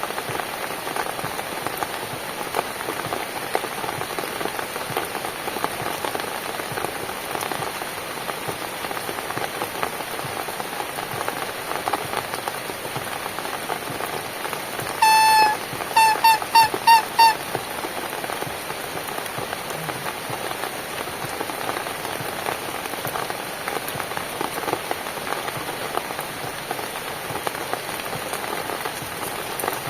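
Steady rain falling on a surface. About halfway through, a higher pitched sound cuts in above the rain: one longer note, then five quick short repeats.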